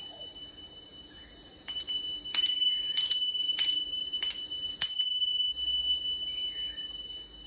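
A small metal chime struck six times, about 0.6 s apart, each strike ringing out bright and high over a steady high ringing tone that carries on throughout.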